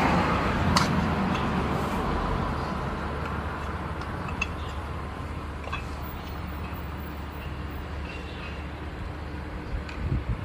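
Small air compressor being unbolted with hand tools: a few faint metal clinks over a steady low hum, with a hiss that fades away over the first few seconds.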